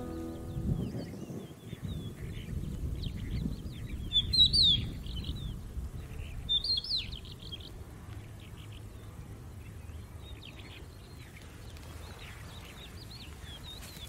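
Birds chirping and calling, with many short high chirps and two louder calls about four and a half and seven seconds in.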